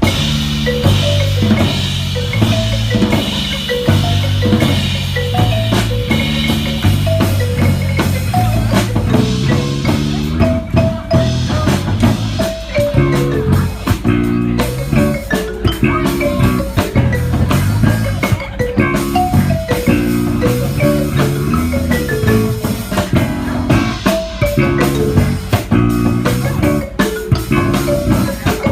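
Music: a marimba trio plays an upbeat pop tune, with a Yamaha marimba carrying the melody in quick struck notes over an electric bass line and a drum-kit beat.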